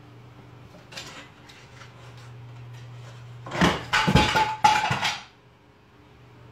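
A small traffic-light lamp knocked off a side table, crashing to the floor in a quick run of clattering impacts with a metallic ring, lasting about a second and a half past the middle. A faint knock comes about a second in, over a low steady hum.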